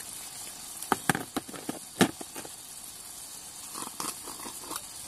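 Pork curry sizzling quietly in a frying pan, with a few sharp clinks of a spoon against a steel spice container between one and two seconds in and softer knocks near the end.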